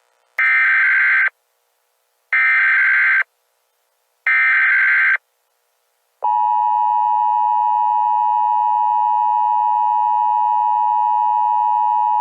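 Emergency Alert System SAME header: three identical bursts of buzzing digital data tones, each about a second long and two seconds apart. About six seconds in, the steady EAS two-tone attention signal begins and holds, announcing that an alert message follows.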